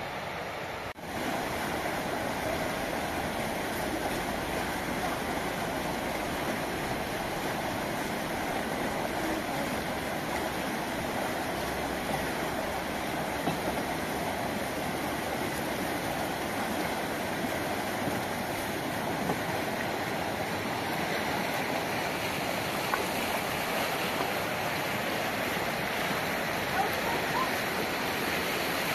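Fast mountain river rushing over rocks: a steady wash of water noise that dips briefly about a second in, then holds steady.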